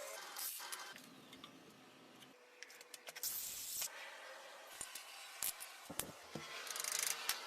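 Short bursts of hiss and scattered sharp clicks and knocks of hand work with tools on wood.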